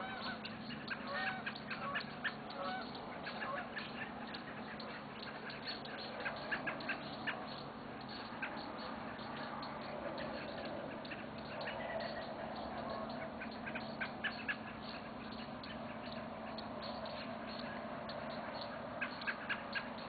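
Dusk bird chorus: Canada geese honking with American robins and other songbirds chirping, many short sharp chirps coming in clusters throughout.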